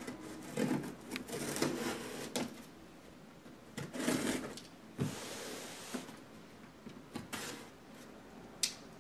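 A cardboard shipping box being opened and its contents handled: irregular rustling and scraping of cardboard and packing material, with a few sharp knocks and clicks.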